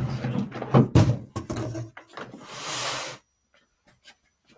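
Black high-density polyethylene cart shelves and parts knocking and clattering as they are handled in a cardboard shipping box, with a series of sharp clicks, then a short scraping rustle of cardboard near the middle.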